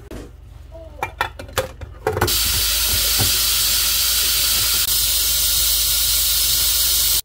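A few metallic clacks from a Fissler stainless-steel pressure cooker lid being handled, then about two seconds in a loud, steady hiss of steam rushing from the cooker's pressure valve, which cuts off suddenly near the end.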